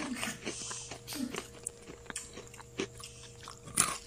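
Close-up eating sounds: a person chewing grilled catfish and rice, with irregular small mouth clicks and wet smacks and one sharper click near the end.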